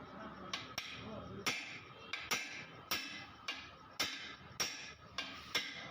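Hammer blows on a heated KTM Duke wheel to straighten its bent rim: sharp metallic strikes, about a dozen at an uneven pace of two or three a second, each with a short ring.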